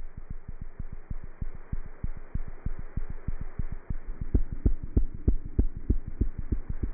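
A cat's heartbeat heard through a stethoscope: fast, regular low thumps over a steady hum, becoming louder about four seconds in at roughly three beats a second.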